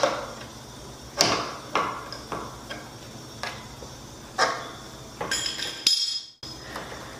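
Scattered knocks and clicks as someone shifts in and gets up from a desk chair at a desk, ending in a short burst of rustling that cuts off suddenly.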